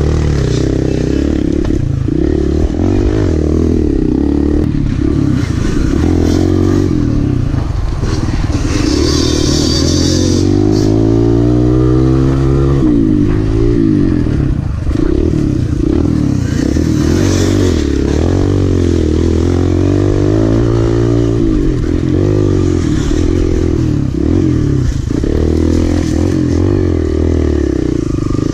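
Kawasaki KLX dirt bike's small single-cylinder four-stroke engine heard onboard, its revs rising and falling with the throttle, including a long climb in pitch about halfway through.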